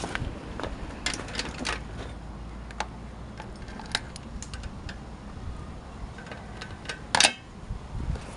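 Scattered metallic clicks and clinks from the coupling of a miniature railway tank wagon being worked with a wooden stick, with one louder clank about seven seconds in.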